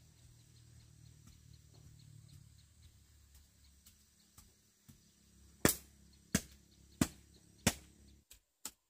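Four loud, sharp knocks evenly spaced about two-thirds of a second apart, over a faint low hum; the hum cuts off near the end and two lighter clicks follow.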